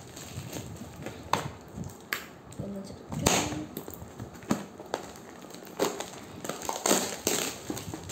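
Clear plastic wrapping crinkling and rustling as it is pulled and torn off a helmet, in irregular crackles with a few sharp snaps.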